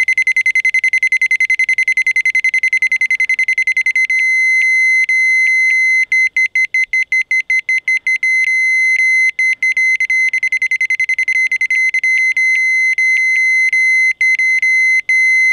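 Handheld laser-alignment sensor beeping a high tone in a rapid stream as the laser beam falls on it. The beeps break up and come irregularly from about four seconds in, smooth out again, then turn choppy once more, as the beam flickers on and off the sensor through shimmering air.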